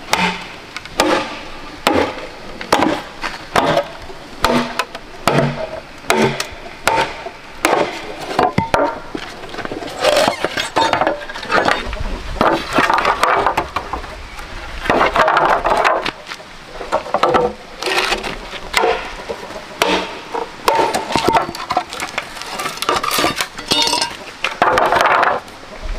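Blade chopping into a standing bamboo pole, sharp woody strikes about every 0.7 seconds. After about ten seconds this gives way to hollow knocking and clattering of split bamboo halves being handled and stacked.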